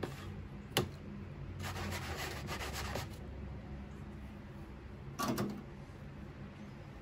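A steel carpenter's square set down into a plastic tub of thinner: a sharp tap just under a second in as it meets the tub, then two bursts of noise from the liquid and metal, about two and five seconds in.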